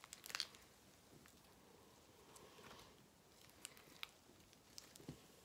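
Homemade glue slime being stretched and squeezed in the hands: faint sticky clicks and squishes, a short run of them right at the start and a few single ones in the second half.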